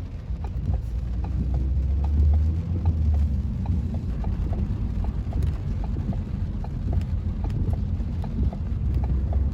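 A car's indicator flasher ticking steadily, about two to three clicks a second, over the low rumble of the car's engine and road noise in the cabin.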